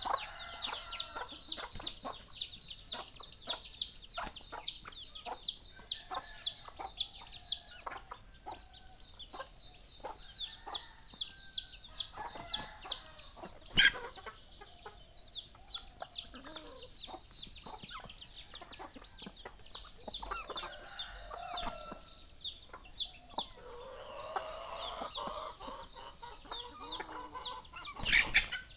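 Chickens clucking amid many short, high, falling chirps, several a second. A single sharp click about halfway through.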